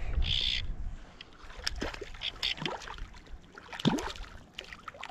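Hooked trout thrashing and splashing at the water's surface beside a float tube: a splash, then a string of small water plops and drips, the loudest about four seconds in.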